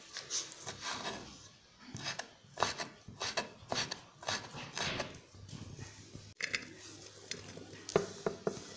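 Knife chopping smoked calabresa sausage on a wooden cutting board: irregular knocks and scrapes of the blade on the wood. Near the end the diced pieces are scraped off the board into a frying pan.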